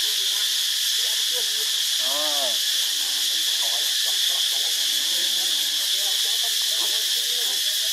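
Steady high-pitched drone of insects in the trees, even and unbroken. Faint, indistinct calls lie underneath, with one clearer rising-and-falling call about two seconds in.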